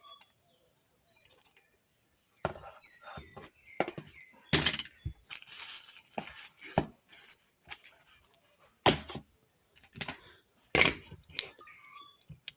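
Irregular clicks and knocks of small hard objects being handled, with a scraping rustle in the middle; the loudest knocks come about four and a half, nine and eleven seconds in.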